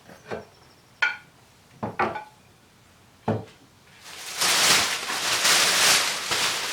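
Several sharp knocks of hard objects handled or set down, one with a brief ring, then a loud steady rushing hiss from about four seconds in.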